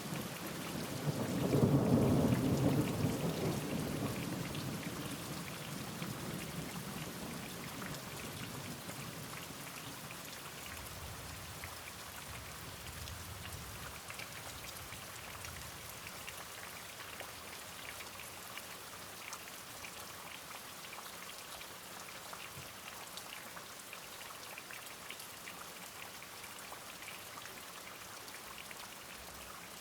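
Steady rain falling with scattered drips. A roll of thunder swells about two seconds in and fades away over several seconds, and fainter low rumbles follow around ten to fourteen seconds in.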